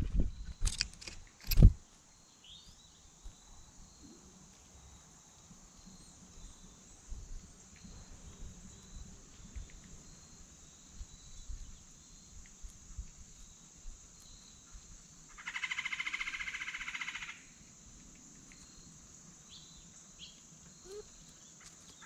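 A few sharp knocks in the first two seconds, then a faint outdoor background with a steady high insect-like hum. About fifteen seconds in comes a rapid buzzy trill lasting nearly two seconds, typical of a bird's rolling call.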